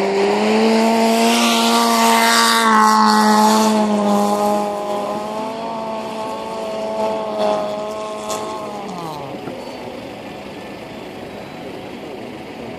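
A car engine revving high and held there, with a rushing hiss over the first few seconds. About nine seconds in, the revs drop away.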